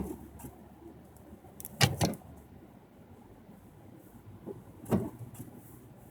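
Car cabin on the move in snow: a steady low road rumble, broken by sharp knocks, two close together about two seconds in and a single one near five seconds.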